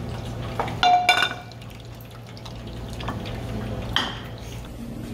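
Metal frying pans and utensils clanking on a gas stove: two ringing clangs about a second in and a smaller knock near four seconds, over a steady low hum.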